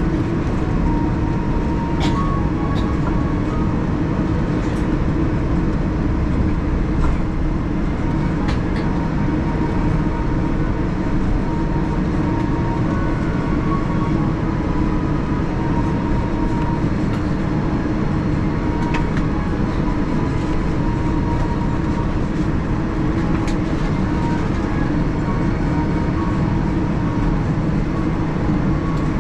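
Steady cabin noise of a Boeing 787-10 taxiing, its Rolls-Royce Trent 1000 engines at idle: an even low rumble with a faint steady whine over it and a few light clicks.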